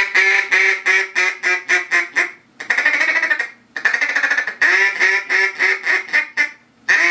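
Hen House double-reed duck call blown in a series of raspy hen duck quacks: a quick run of about a dozen short quacks coming closer together, a longer drawn-out quack, then another run of quacks.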